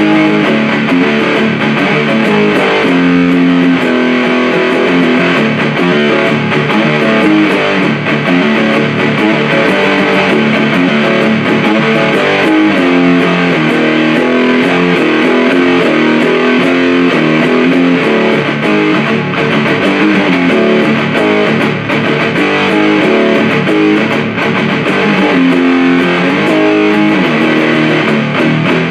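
Electric guitar playing riffs through a Supercoolpedals 77 Fuzz Blender, a Big Muff-style op-amp fuzz pedal, into an Orange Super Crush 100 amplifier, giving a thick, heavily distorted fuzz tone.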